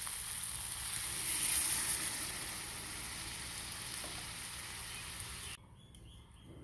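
Water poured into a hot kadai of fried raw jackfruit, potato and spice paste, hissing and sizzling. The sizzle swells about a second and a half in, then eases, and cuts off suddenly near the end.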